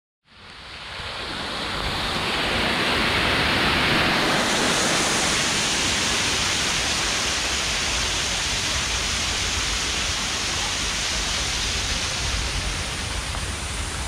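Waterfall rushing steadily, a dense, even hiss over a low rumble, fading in over the first couple of seconds.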